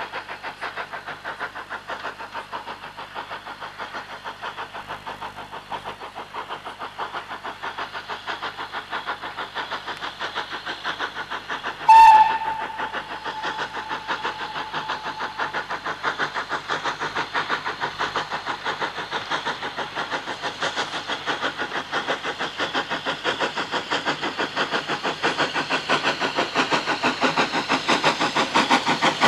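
Steam locomotive hauling a carriage, its exhaust beats chuffing steadily and growing louder as it approaches. About twelve seconds in comes one short whistle blast, the loudest sound, trailing off over a couple of seconds.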